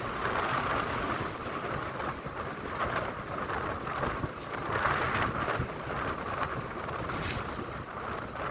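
Ocean waves washing in, the noise swelling and easing every couple of seconds.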